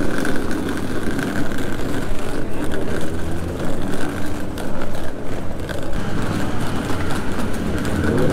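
Street traffic: motor vehicles running past with steady engine and tyre noise.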